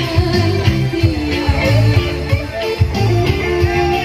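Kecimol band music played loud through a large sound system: a guitar melody over a steady bass and drum beat.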